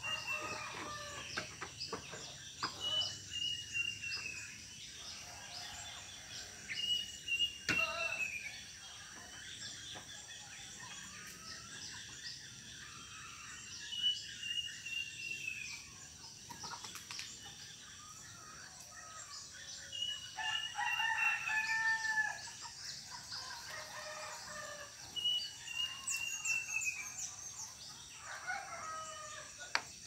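A sirit uncuing (kedasih cuckoo) calling again and again: a high whistled phrase that slides down in pitch, every few seconds. A rooster crows about twenty seconds in and again near the end, over a steady high insect drone.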